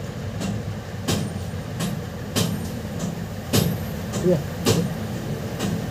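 Sharp metallic clicks and taps about once a second as metal tweezers work a soldered display connector loose from a phone's circuit board, over a steady low hum.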